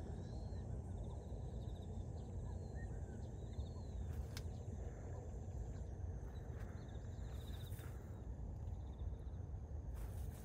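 Outdoor rural ambience: faint short chirps and buzzy trills from small wild creatures repeat every second or two over a steady low rumble, with a faint steady high tone behind them.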